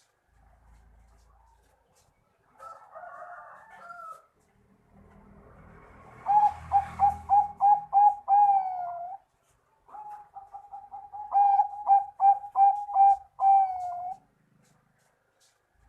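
Zebra dove (Bangkok perkutut) singing: two phrases of rapid staccato coos, each ending on a long drawn-out note, the first about six seconds in and the second about ten seconds in. A short rough chatter comes about three seconds in.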